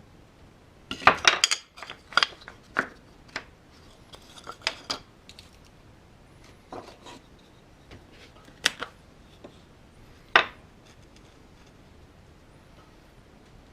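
Handling clatter of wood pieces and hand tools: irregular clicks and knocks, busiest in the first few seconds, then scattered, with one sharp knock about ten seconds in.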